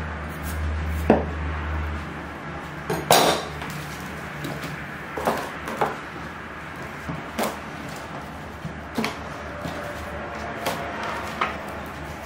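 Scattered knocks and clatters of a steel cleaver and cut watermelon rind on a wooden cutting board and tabletop, about eight in all, the loudest about three seconds in, over a steady low hum.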